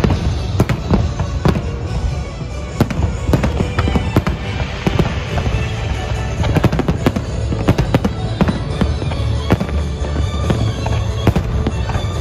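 Fireworks display: aerial shells bursting in quick, irregular succession, sharp bangs several times a second with crackling between them, over a continuous low rumble.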